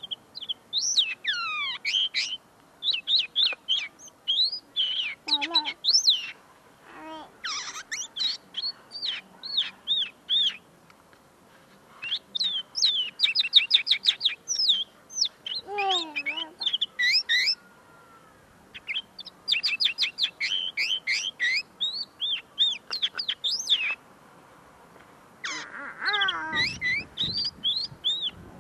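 Common linnet singing at close range: a long run of twittering phrases made of fast trills and rising and falling whistled notes, broken by a few short pauses. The song is not yet fully formed; the bird is still clearing its notes.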